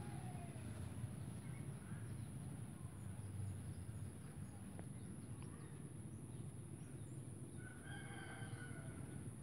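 Faint outdoor background with a low steady rumble, and near the end a drawn-out animal call lasting about a second and a half.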